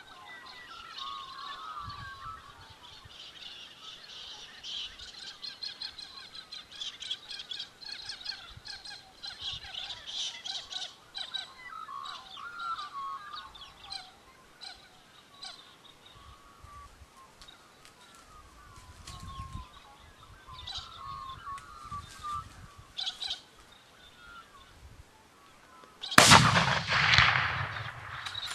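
Birds chirping and calling. Near the end comes a single loud rifle shot, fired at fallow deer, that trails off over a couple of seconds.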